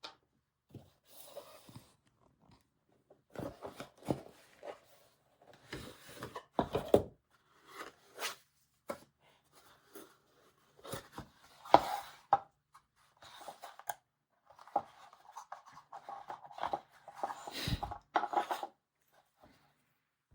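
Hands handling and opening product packaging and small parts: irregular rustling and scraping with sharp clicks and knocks.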